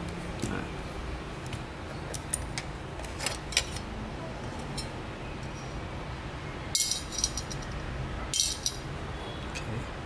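Small hard parts and tools being handled on a work surface: scattered light clicks and clinks, with two short rustling bursts, one a little after halfway and one near the end.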